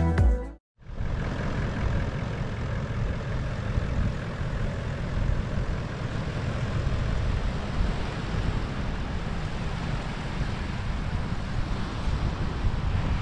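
Wind buffeting the microphone over the steady running of a Toyota LandCruiser Troopcarrier's engine, starting about a second in after a brief silence.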